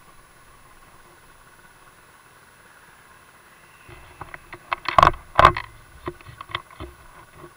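Handling knocks and clicks on a motorcycle-mounted action camera over a steady faint hum. They come in an irregular cluster from about four seconds in, the two loudest knocks close together about five seconds in.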